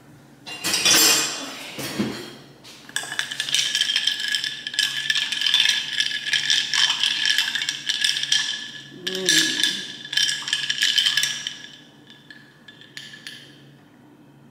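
Ice balls clinking and rattling against a glass cup as iced coffee is stirred briskly with a glass straw, with ringing from the glass, for about nine seconds before stopping. A loud handling knock and rustle comes about a second in.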